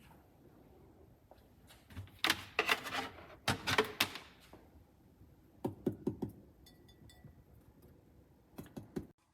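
Irregular clicks and knocks of hard objects being handled, coming in clusters, the busiest a couple of seconds in.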